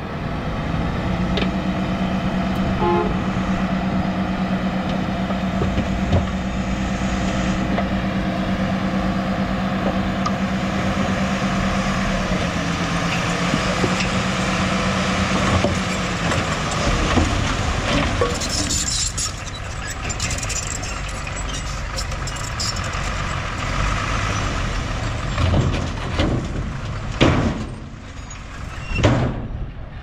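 Engine of earth-moving machinery running steadily, its note changing about halfway through, with a few knocks or clanks near the end.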